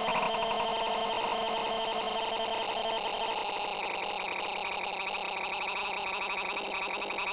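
Heavily effects-processed cartoon audio: a dense, distorted jumble of layered tones with a fast stuttering flutter, staying steady in level throughout.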